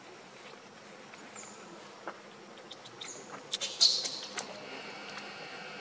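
Forest ambience: insects buzzing and a few short, high, falling chirps over a steady hiss. About four seconds in comes a brief cluster of sharp clicks and rustles, the loudest moment, then a faint steady high insect hum.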